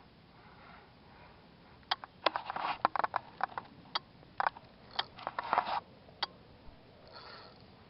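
Sharp clicks and light rattling of small hard parts being handled, in a quick, uneven flurry that starts about two seconds in and lasts about four seconds, with one last click after it.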